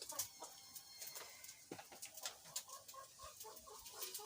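Chickens clucking faintly, a quick run of short notes in the second half, with a few light clicks.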